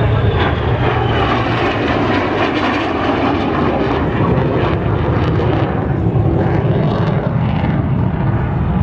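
F-35A Lightning II's single F135 turbofan jet engine, loud and steady as the fighter manoeuvres overhead, with a high whine sliding down in pitch at the start.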